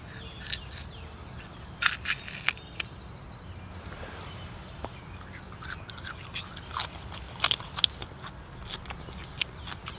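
Crisp cracking and crunching of a raw Japanese knotweed stalk as it is peeled by hand and chewed. A cluster of loud cracks comes about two seconds in, and scattered crunches of chewing fill the second half.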